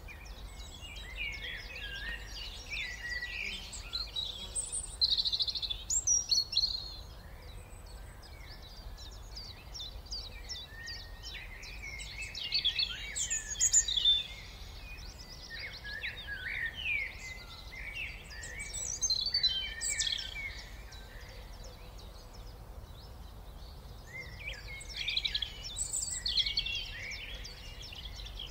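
A chorus of many small songbirds chirping and twittering over one another, with several busier spells, over a steady low background rumble.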